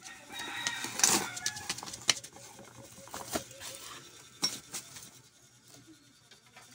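Rubber flip-flops slapping on a bare concrete floor: a handful of sharp, irregularly spaced slaps in the first five seconds.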